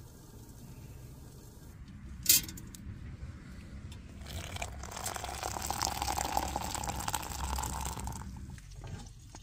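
Water poured from a kettle into a metal camping mug, a steady splashing pour of about four seconds in the second half. A single sharp click comes about two seconds in, before the pour.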